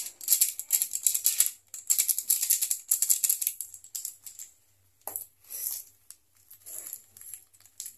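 Plastic spice packet crinkling and rustling in quick bursts as it is cut open and shaken over raw meat. The bursts are dense at first and come more sparsely about halfway through.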